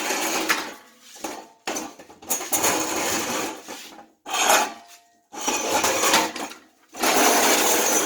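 Repeated bursts of rushing air, each lasting from half a second to a couple of seconds and stopping sharply, as dust is blown out of a window air conditioner's evaporator coil.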